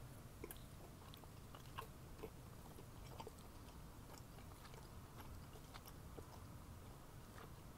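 Faint chewing of a mouthful of cooked ground beef, with small wet mouth clicks scattered irregularly.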